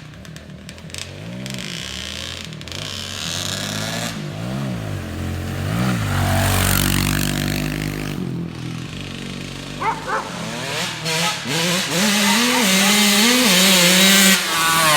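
Snowmobile engine revving up and down over and over, its pitch rising and falling with each blip of the throttle and getting louder toward the end.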